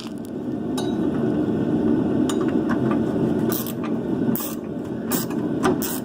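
Hand tools clinking and scraping against the steel upper mounts of a rear shock absorber while the mounting bolts are worked on: about seven short, sharp metallic clinks at irregular intervals over a steady low rumble.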